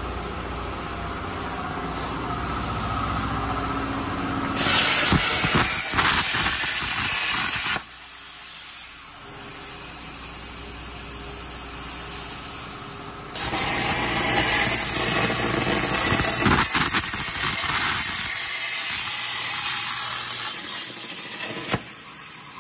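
CNC plasma cutter torch cutting steel plate: a loud, steady hiss of the arc for about three seconds, a few seconds of lower hum, then a second, longer cut that stops shortly before the end. The torch is cutting on an electrode the owner judges worn out.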